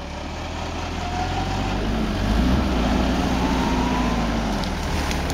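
Mitsubishi Pajero's engine running under light throttle as the vehicle crawls forward over rough ground while being winched; the engine grows louder over the first couple of seconds, then holds steady.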